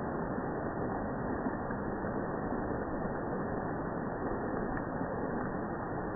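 Rain and dripping water on jungle foliage, slowed down with the slow-motion footage into a steady, low, dull rushing noise. A faint tick comes near the end.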